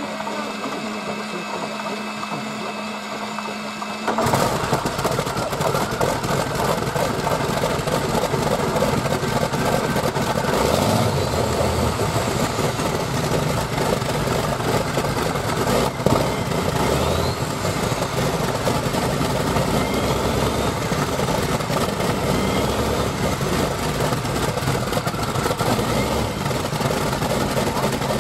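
Curtiss-Wright radial aircraft engine cold starting. A steady whine while the propeller is cranked gives way about four seconds in, as the engine catches, to the louder running of the engine. It settles to an idle, with one sharp pop about sixteen seconds in.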